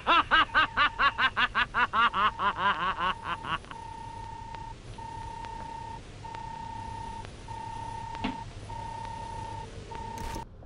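A man laughing loudly in rapid 'ha-ha-ha' bursts that slow down and stop after about three and a half seconds, over a steady electronic tone. The tone then goes on alone as a string of long beeps, each about a second, with a short click near the end.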